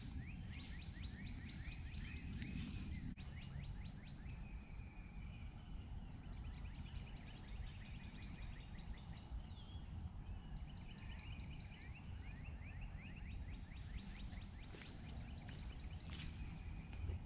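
Wild songbirds singing, with rapid trilled runs of short falling notes repeating over and over, over a steady low rumble.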